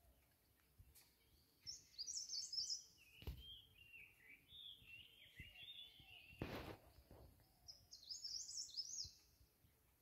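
Small songbirds chirping in quick, high twittering phrases, in spells, with a couple of short dull thuds in the middle.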